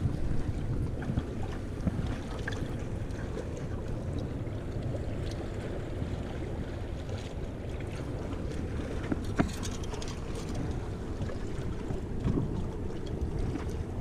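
Steady low rush of water at the dam mixed with wind on the microphone. Clothing rubs against the body-mounted camera, with a few small clicks, one about nine seconds in.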